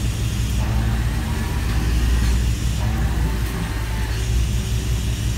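RV hydraulic leveling-jack system running with a steady low hum as the jacks extend down onto their pads, just bled of air after new hoses were fitted.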